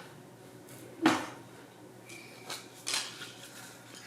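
A few sharp clicks and knocks of hard parts being handled, the loudest about a second in, with smaller clacks near the end.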